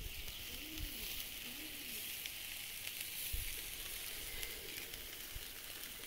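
Meat sizzling on a barbecue grill over hot coals: a steady hiss with scattered small crackles.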